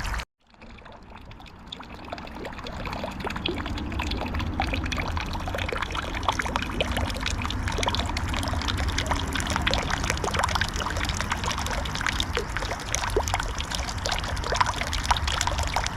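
Water from a bird bath fountain pump spraying up and splashing back into the basin, a steady patter of drops. It cuts out for a moment at the start, then builds back up over the next couple of seconds and runs steadily.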